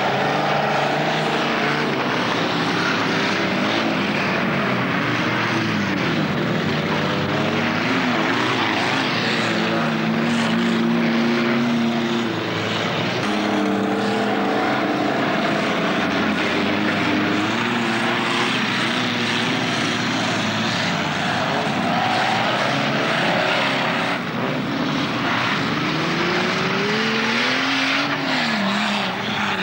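Several stock car engines running at once, their pitch rising and falling as the cars rev and back off, in one continuous din.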